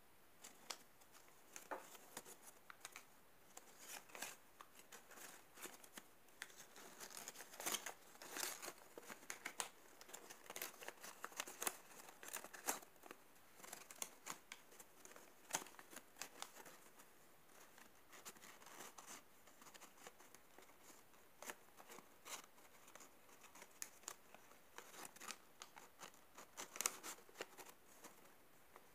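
Folded paper modules of an origami Bascetta star rustling and crinkling as they are slotted into one another and pressed into place by hand: soft, irregular crinkles and small clicks, busiest in the middle and again near the end.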